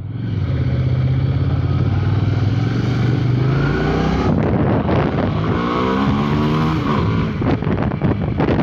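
Hyosung GT650R's V-twin engine pulling away from a standstill, its note rising through the gears. The climb is interrupted by a gear change about four seconds in and another near the end.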